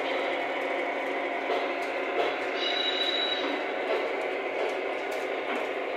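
Lionel O-gauge freight sound cars playing recorded freight-car rolling sounds through their onboard speakers as the train runs: a steady rolling noise with faint clicks, and a brief high squeal about two and a half seconds in.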